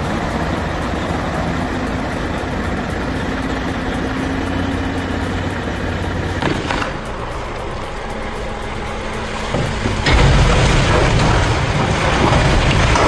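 Heavy vehicle engine running steadily. After a change of sound at about six and a half seconds, a much louder broad rumbling noise starts about ten seconds in.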